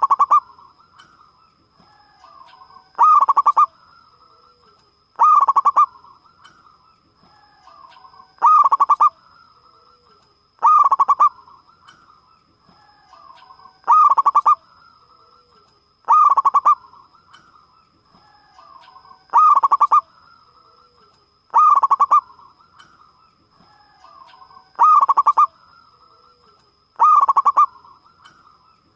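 Zebra dove (perkutut) singing: a loud, clear coo repeated about every two and a half to three seconds, each one led in by softer, lower notes.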